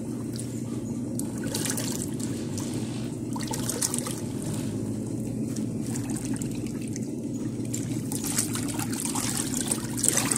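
Dako 4 kg tanquinho washer running: a steady motor hum under the continuous swish and splash of its agitator churning water and clothes. Near the end the splashing gets louder as a hand stirs the water.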